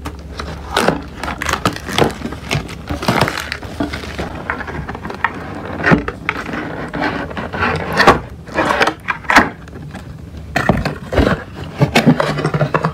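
Hands peeling the plastic wrap off a cardboard product box and pulling the box open: irregular crinkling, tearing and scraping of plastic and cardboard.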